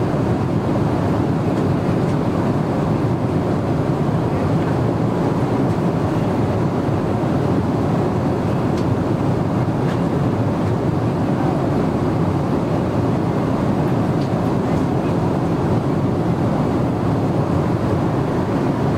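Steady cabin noise of a Boeing 777-300ER airliner in flight: an even, unbroken rush of airflow and engine noise.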